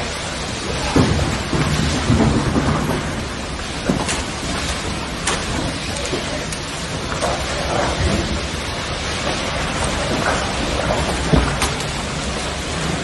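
Wind of a possible tornado rushing loud and steady, swelling in gusts, with a few sharp knocks.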